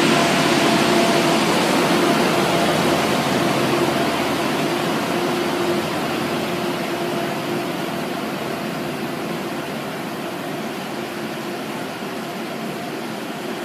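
Renfe regional train pulling away along the platform: a steady rumble with an even hum, the hum dying out about halfway and the rumble slowly fading as it draws off.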